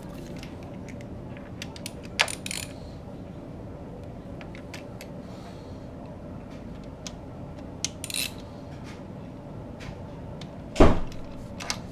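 Hands working the water line into the engine of a 2010 Yamaha R1: scattered small clicks and taps of parts being handled, then one loud thump near the end as the line is forced home.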